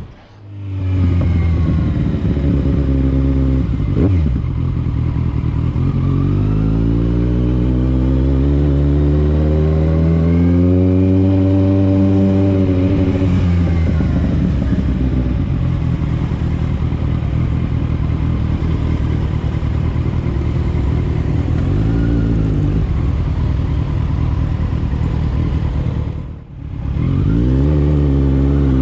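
Motorbike engine running under way, its pitch rising as it accelerates and falling back several times with the throttle. It drops away briefly near the end, then rises again.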